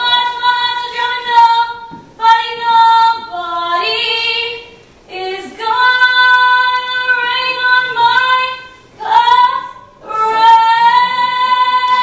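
A girl singing alone without accompaniment: long, high held notes in phrases broken by short breaths.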